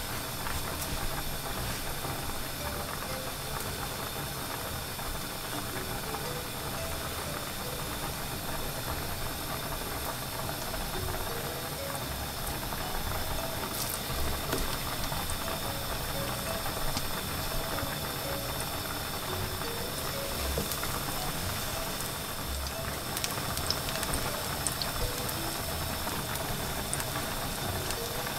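Plantain strips frying in shallow oil in a pan, a steady sizzle, with a few light clicks and taps as a knife slices more plantain over the pan.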